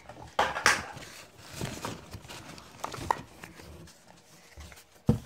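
Glass nail polish bottles being handled and set down in a cardboard box: scattered knocks and light ticks with a brief rustle of packaging, and one sharper knock near the end.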